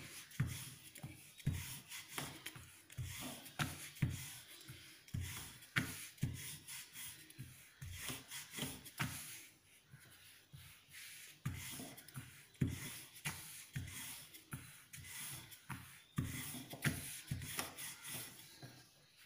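Wooden rolling pin rolling out a sheet of flour dough on a floured surface: repeated rubbing strokes with irregular light knocks as the pin is worked and the dough is flipped and patted by hand.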